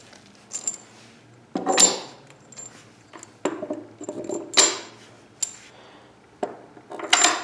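Steel bolts and washers clinking as they are handled and pushed through holes in wooden frame boards: a series of sharp metallic clinks, some ringing briefly.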